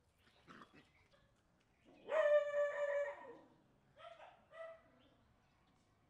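Puppy yelping: one long, steady-pitched whining cry about two seconds in, then two short yelps a second or so later.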